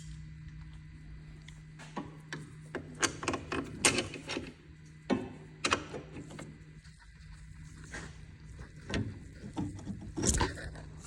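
Irregular metal clanks and knocks of tools on car suspension parts, in two clusters, over a steady low hum that stops near the end.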